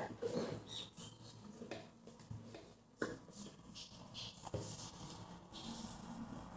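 Faint knocks and clicks of a plastic blender jar being handled: a sharp one right at the start, another about three seconds in and one more a second and a half later. Near the end comes a soft hiss as the blended cassava is poured from the jar into a pot.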